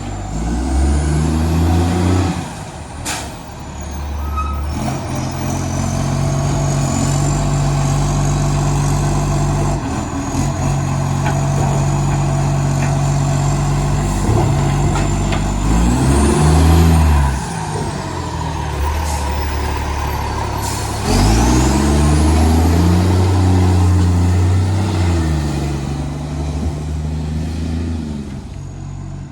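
Garbage truck's diesel engine revving hard and pulling away several times, with steadier running in between. It sounds deep and loud through a massive exhaust leak. A few short sharp hisses and a high whine that glides up and down come through along with it.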